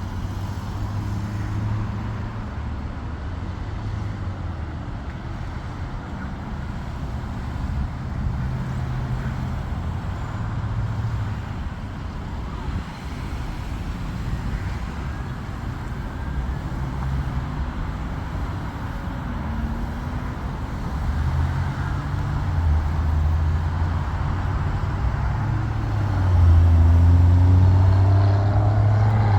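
Steady low engine rumble mixed with outdoor noise, swelling louder near the end.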